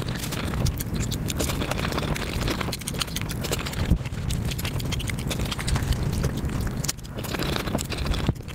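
Close-miked mukbang eating sounds played back at about five times speed: chewing, mouth smacks and food handling run together into a dense, even stream of rapid tiny clicks.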